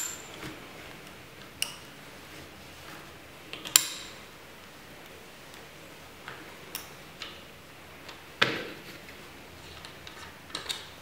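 Scattered sharp metallic clinks and taps of the steel parts of a PCP air rifle's air block and small tools being handled and set down, about eight in all, the sharpest about four seconds in.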